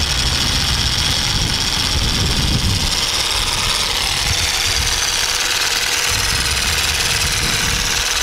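Jigsaw Massage percussive massage gun running steadily as it works over the chest muscles, a continuous high-pitched motor buzz.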